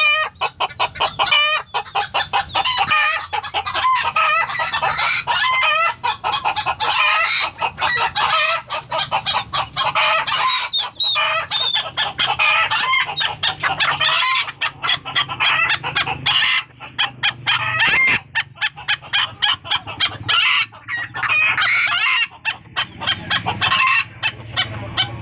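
Caged chickens clucking and calling over one another without a break, with roosters crowing among the calls.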